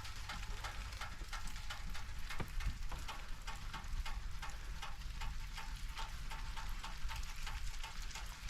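Dense, irregular pattering and ticking like light rain, over a steady low rumble: water and bits of ice dripping and falling after freezing rain.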